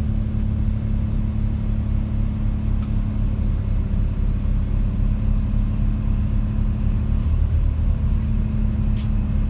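Steady low drone of a moving diesel railcar heard inside the passenger cabin, its engine hum dipping briefly in pitch about seven seconds in.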